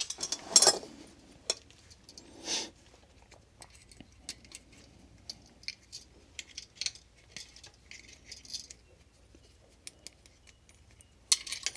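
Metal tool and fitting sounds from work on a well pump pressure switch: irregular sharp clicks and clinks of a wrench on the switch and its fitting, with a couple of louder scrapes near the start and a louder clatter near the end.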